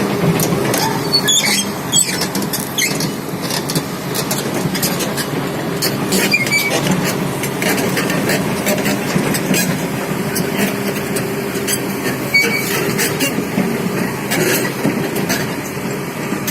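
Hitachi 330H hydraulic excavator's diesel engine running steadily at work, with repeated short metallic clanks and knocks from the machine throughout.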